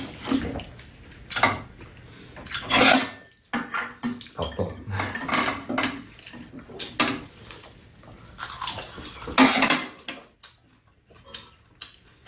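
Metal spoons and chopsticks clinking and scraping against bowls and a metal serving tray during a meal, in irregular clatters on and off.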